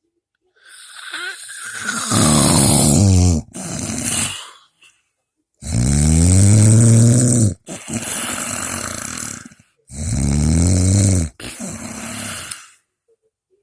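Loud snoring: three long snores about four seconds apart, each followed by a shorter, quieter breath.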